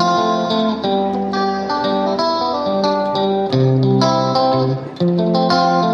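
Background music: a plucked guitar melody with chords.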